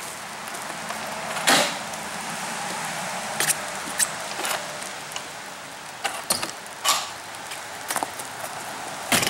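Steady hiss of rain with scattered knocks and clicks as an enclosed trailer's side entry door is handled and someone steps out through it; the loudest knock comes about a second and a half in.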